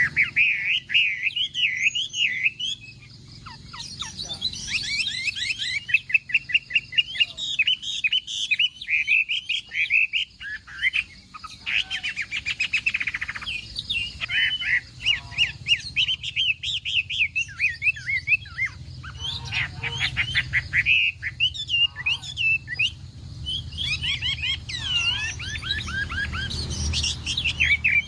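Chinese hwamei singing a long, varied song of rapid repeated whistled notes and fast trills, broken by short pauses between phrases.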